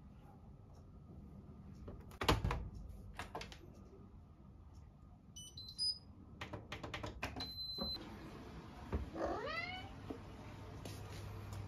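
Indesit washer-dryer being loaded and shut with a few clicks and a thud, then its control panel beeping as buttons are pressed, ending in one longer beep. About nine seconds in, a cat meows once.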